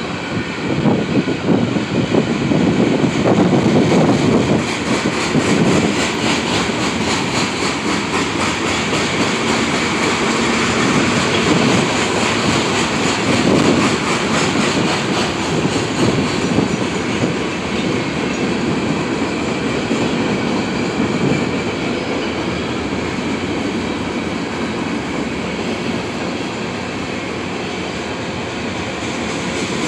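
Freight train of tank cars rolling past at close range, steel wheels clicking over the rail joints over a continuous rolling noise. Loudest in the first few seconds, then steady.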